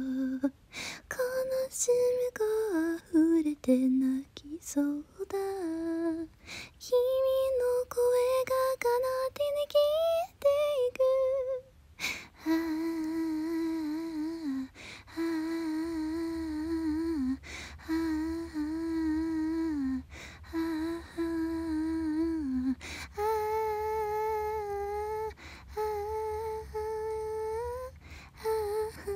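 A high voice sings wordless "aah" notes. The first half is choppy, with the pitch jumping and sudden cut-offs and clicks between notes. After that come four held notes of about two seconds each at one pitch, then longer held notes a step higher with a slight wobble.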